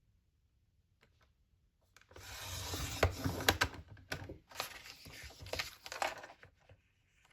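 Paper trimmer's sliding blade cutting through a sheet of designer paper in two long rasping strokes, with a few sharp clicks.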